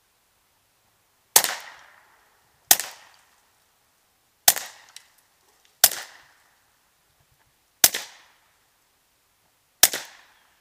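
Suppressed Ruger SR22 .22 LR pistol firing six single shots at an uneven pace, one to two seconds apart, each a sharp crack with a short echoing tail.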